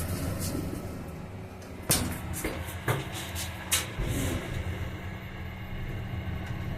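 Passenger lift running with a steady low hum, and three sharp clicks or knocks about two, three and nearly four seconds in.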